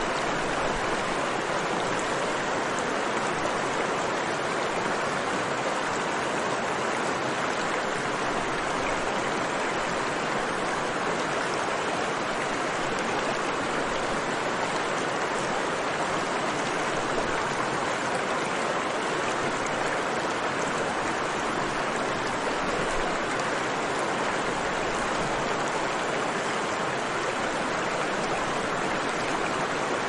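Mountain river rushing steadily, an even, unbroken wash of flowing water.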